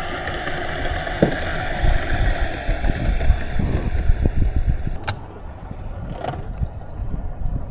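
An engine running steadily with wind buffeting the microphone. The engine's whine fades over the first five seconds, and a sharp click comes about five seconds in.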